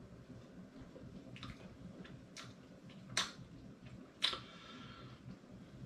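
Quiet room with soft mouth and lip smacks from tasting a sip of cider, including two sharper clicks about three and four seconds in.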